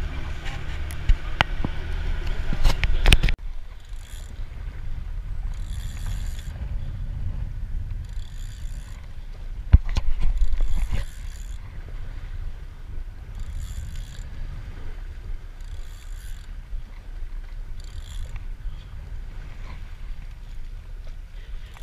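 Fishing boat under way on a rough sea: a steady low rumble of engine and rushing water, with hiss from spray or wind returning about every two seconds. Sharp knocks come in the first three seconds, and a single knock with a brief louder surge about halfway through.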